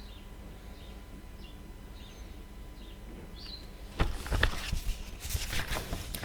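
Faint bird chirps in the background, then from about four seconds in a run of louder rustling and knocking noises.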